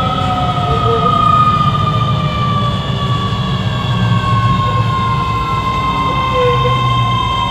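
Keio 7000 series electric train's traction motors whining, several tones falling slowly in pitch as the train slows, over a steady rumble of wheels on rail.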